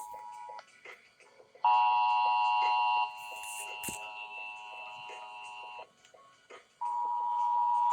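Emergency Alert System alert tones over a radio broadcast: a loud, steady, buzzy two-tone attention signal about a second and a half in, lasting about a second and a half, then a fainter steady high tone, and another loud steady tone starting near the end.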